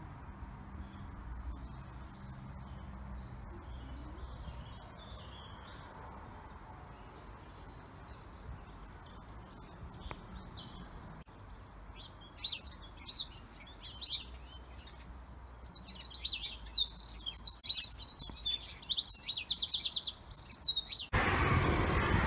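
Small songbirds chirping and singing outdoors, faint at first, then louder and closer from about halfway, with quick repeated trills. Near the end, piano music cuts in abruptly.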